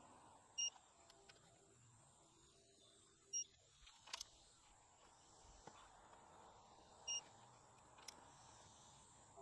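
Short electronic beeps from a digital torque tool, three of them a few seconds apart, each signalling that the set torque has been reached as ARP head studs are tightened in steps. A couple of sharp clicks from the socket and wrench fall between the beeps.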